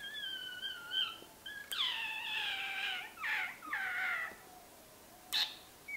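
A cat meowing: a run of drawn-out meows, most of them falling in pitch, the longest about a second and a half, then a short sharp click about five seconds in.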